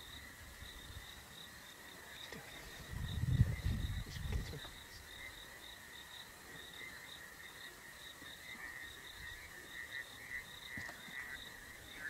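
Insects chirring steadily in the bush, a faint pulsing high trill, with a brief low rumble about three seconds in.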